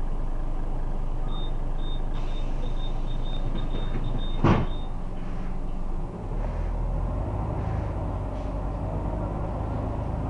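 Scania Omnidekka double-decker bus heard from inside the saloon, its diesel engine idling while the door warning beeper sounds in quick short pips for a few seconds. The doors shut with a loud thud about four and a half seconds in. A second and a half later the engine note deepens as the bus pulls away.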